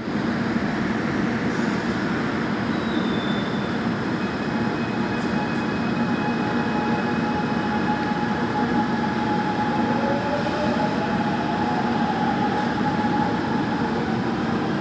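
Gwangju Metro Line 1 subway train pulling out of an underground station and speeding up into the tunnel, heard from inside the car. Steady running noise throughout, with a motor whine that rises in pitch over the last few seconds as the train gathers speed.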